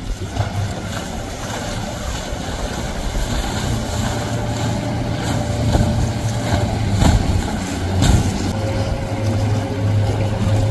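Mercury outboard motor on a small center-console boat running at speed, a steady drone over the wash and spray of the hull through the chop. A couple of thumps come about seven and eight seconds in.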